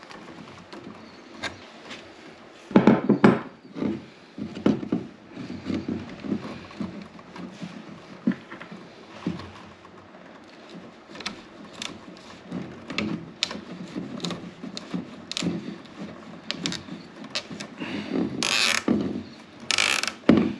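Handling noise of electrical wiring work: lineman's pliers twisting copper wires together and plastic wire nuts being screwed onto the splices, with irregular clicks, scrapes and plastic rattles from the thermostat body. The loudest knock comes about three seconds in, and there are two rustling scrapes near the end.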